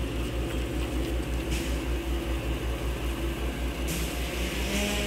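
Diesel farm tractor engine running steadily as it tows a loaded hydraulic boat trailer, a low drone with an even pulsing beat.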